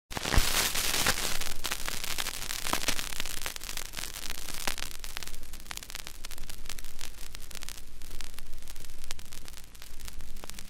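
Stylus of a portable Radiola record player set down on a spinning vinyl record, then the surface noise of the lead-in groove: a steady hiss full of crackles and pops, loudest just after the start.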